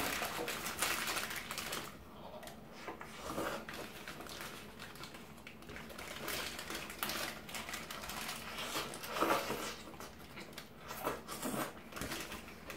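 Paper burger wrapper crinkling and rustling in the hands, with close-up chewing and mouth sounds of a person eating a burger; the crackling is loudest at the start and again about nine seconds in.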